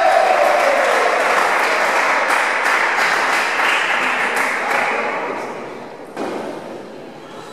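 Applause from spectators and teammates for a point just played, fading out over about six seconds. A brief burst of sound comes in near the end.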